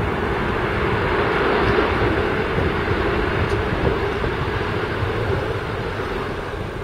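Boeing 737-700 jet airliner landing, its CFM56-7 turbofan engines giving a wide rushing noise over a steady hum, growing gradually quieter over the last couple of seconds.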